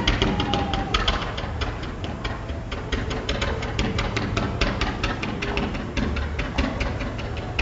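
Fireworks going off in a rapid barrage of sharp bangs and crackles, several a second, with no let-up.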